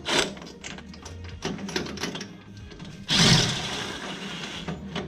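Clicking and clattering of hand tools working on metal, with a louder rasping burst about three seconds in that fades away, over a steady low hum.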